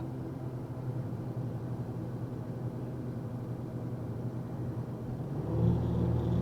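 Box truck engine running steadily, heard from inside the cab. About five and a half seconds in it grows suddenly louder under acceleration.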